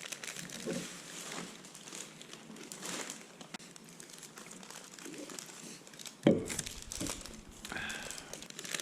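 Continuous crinkling and rustling with many small crackles, and one sharp thump about six seconds in.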